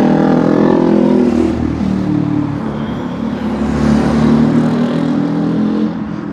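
Road traffic: a motor vehicle driving past close by, its engine note falling in pitch during the first second, followed by more engine and tyre noise that swells again around four seconds in.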